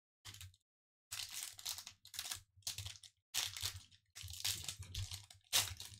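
Foil wrapper of a Pokémon trading card booster pack crinkling and tearing as it is worked open by hand, in a run of irregular bursts. The pack is hard to tear open.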